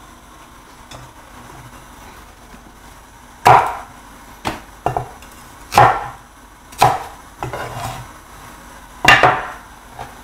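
Chinese cleaver chopping scallion on a wooden cutting board: several sharp, separate chops roughly a second apart, starting about three seconds in.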